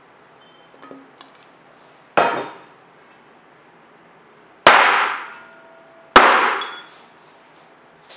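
Three hard clanks of metal kitchenware striking a work surface, the second and third closer together, each ringing briefly, after two faint clicks.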